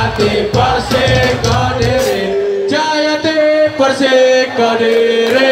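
Live ska band playing with voices singing. About two and a half seconds in, the bass and drums drop out, leaving the voices singing held notes.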